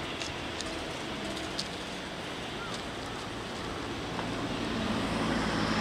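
Steady outdoor rush of wind and distant traffic, with a few faint clicks early on; about four seconds in it grows louder as an unseen vehicle approaches.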